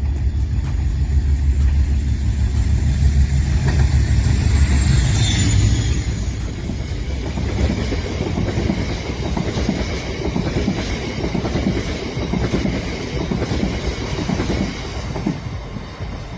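A train running by: a deep, heavy rumble for about the first six seconds gives way to a rattling, clattering noise for the rest.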